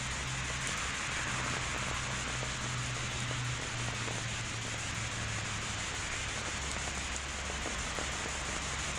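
Steady hiss of heavy rain falling on a wet street and pavement, with a low steady hum underneath.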